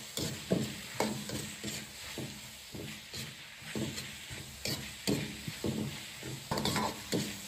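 Metal wok ladle scraping and knocking against a wok as blanched white radish slices are stir-fried, the knocks coming irregularly, about one or two a second, over a steady sizzle of hot oil.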